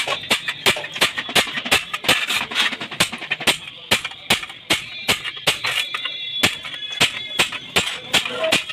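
Hammer blows on sheet metal, about two to four a second at an uneven pace, each with a ringing tail.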